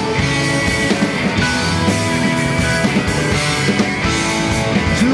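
Live rock band playing an instrumental passage between vocal lines: electric guitar and bass over a steady drum kit beat.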